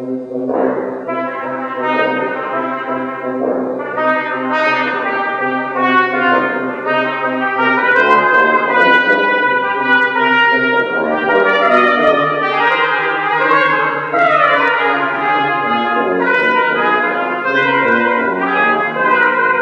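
Music led by brass instruments, with several held notes sounding together.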